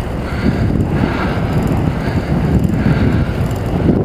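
Wind buffeting a helmet-mounted camera's microphone with tyre rumble from a mountain bike riding on pavement, a steady loud rush. Over it, a rider's panting breaths come and go every second or so.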